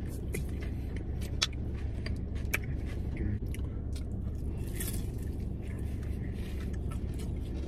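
Crunchy bites and chewing of crispy fried breaded tenders, close to the microphone, with scattered sharp crackles as the crust breaks. Under it runs a steady low hum inside the car.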